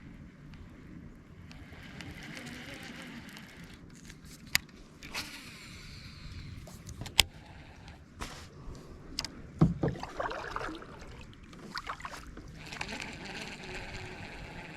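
A fishing kayak on moving creek water: water sloshing along the hull, with several sharp knocks and clicks from gear being handled against the boat.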